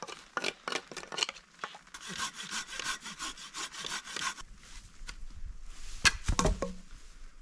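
Knife blade scraping wet moss and bark off a log in quick, repeated rasping strokes on the wood, then one loud wooden thump about six seconds in.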